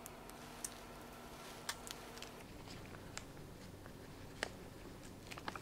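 Faint, scattered clicks and crinkles of plastic packaging and plastic drape being handled with gloved hands, over a faint steady hum that stops a little before halfway.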